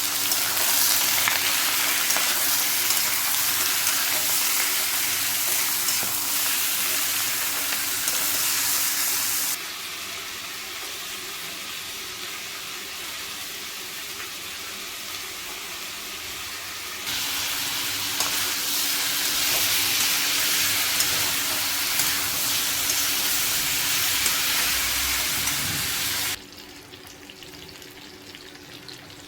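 Chicken sizzling as it fries in a pan, with stirring. The sizzle drops abruptly about ten seconds in, comes back loud around seventeen seconds and falls away sharply near the end.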